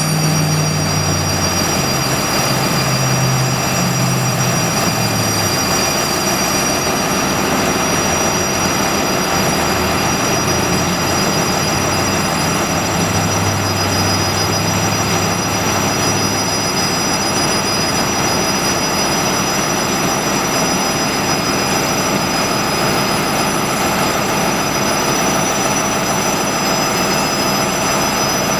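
Orion VII NG hybrid bus running, with two steady high-pitched whining tones over the drivetrain and road noise; this whine is the bus's unusual sound. A low hum rises and fades in the first few seconds and again around the middle.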